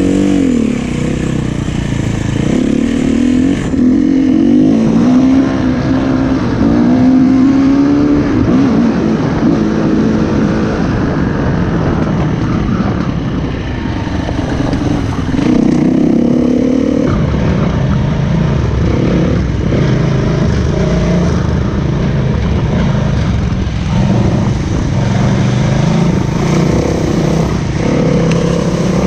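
SWM 300 RS enduro motorcycle's single-cylinder engine, revving up and down again and again as the bike is ridden off-road.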